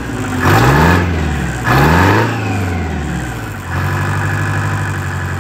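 An engine revved twice, its pitch rising and falling each time, then running steadily from a little past halfway.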